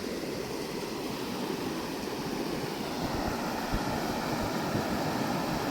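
Steady rush of flowing river water, growing slightly louder over the last couple of seconds.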